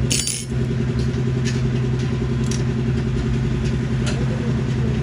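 A sharp metallic rattle just after the start, then a few light clinks, from a 10 mm socket and tools being handled to undo a bolt. Under it runs a steady low mechanical hum.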